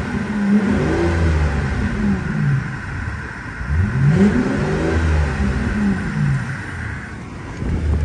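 2002 Mercedes-Benz CL600's 5.8-litre naturally aspirated V12, on a freshly fitted exhaust, revved twice from idle: each rev climbs quickly and falls slowly back to idle. Heard from inside the car's cabin.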